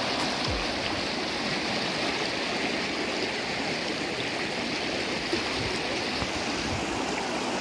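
Shallow river water flowing and rippling steadily over stones.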